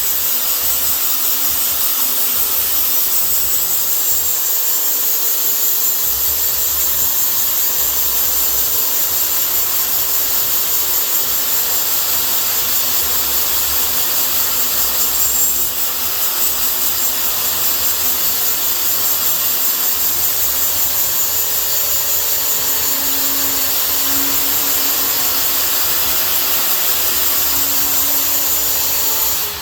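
Electric grinder running steadily while a steel pin is ground down to size, a high hiss of the wheel on metal over the motor's hum; it cuts off just at the end.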